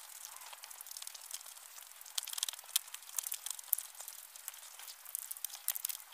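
Close-miked chewing with the lips closed: a mouthful of food worked in the mouth, giving irregular quick wet clicks and smacks, busier about two seconds in and again near the end.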